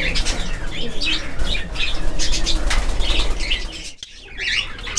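Caged pet birds in an aviary flapping their wings and giving short, high-pitched chirps and squawks, briefly dropping away about four seconds in.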